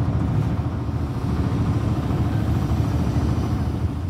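Tour boat's engine running steadily, a low drone.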